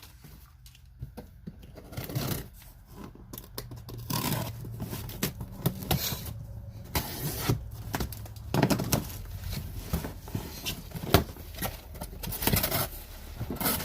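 Tool packaging being handled and opened: a run of irregular rustles, scrapes and clicks that starts about four seconds in.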